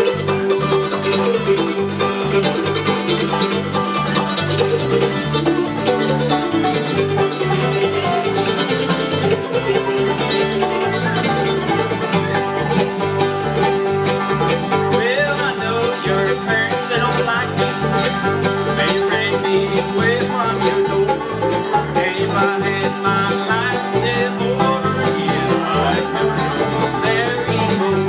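Live bluegrass band playing an instrumental break with no singing: acoustic guitar, mandolin and banjo picking over a steady plucked line from an acoustic bass guitar.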